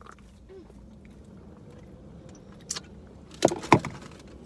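A person eating a cheeseburger: quiet chewing and mouth noises, then two sharp, loud eating noises a fraction of a second apart about three and a half seconds in.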